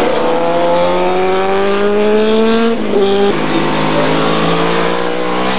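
Superbike racing motorcycle engine accelerating hard, its pitch climbing steadily, then dropping suddenly about three seconds in at a gear change and pulling again at a lower pitch.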